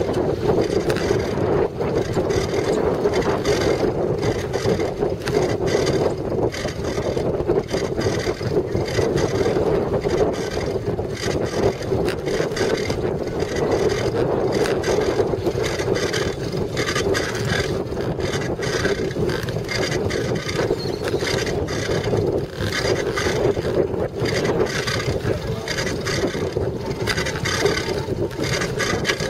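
Bicycle-mounted camera picking up the ride: a steady rumble with continual rattling from the bike and camera mount rolling over packed dirt, and wind buffeting the microphone.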